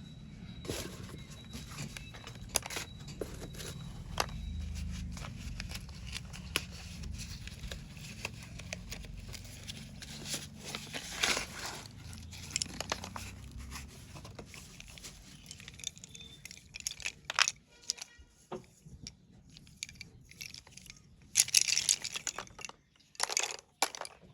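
Paper packaging of a box of slate pencils being torn open and crinkled, with scattered sharp clicks and a louder stretch of crackling near the end.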